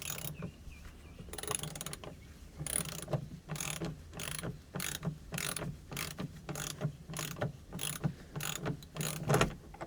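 Ratcheting clicks in a steady rhythm, about two to three a second, as a fitting on a Jandy cartridge pool filter is tightened by hand.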